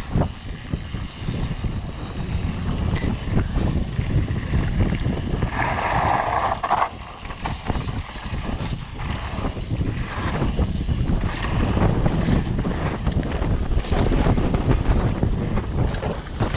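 Wind buffeting the microphone of a camera carried on a downhill mountain bike run, with a steady low rumble and frequent knocks and rattles from the bike crossing rough trail. About six seconds in there is a brief, higher rushing noise.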